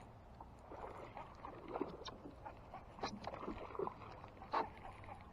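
Faint, scattered knocks and rustles in a small boat on the water, while a hooked fish is being played.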